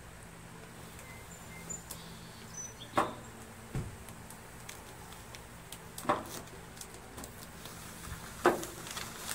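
Painter's tape and masking paper being peeled and pulled off a freshly spray-painted plastic tractor hood: quiet rustling with a few short sharp crackles, the loudest near the end, and a dull thump about four seconds in, over a faint steady hum.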